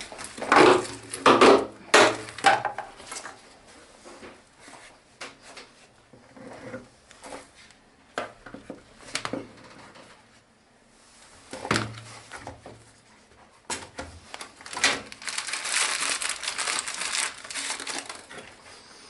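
Handling noises from gloved hands at work: knocks and scrapes of a spatula in a plastic bucket of dry cement mix, with sharp knocks in the first few seconds, and plastic crinkling in a dense stretch near the end.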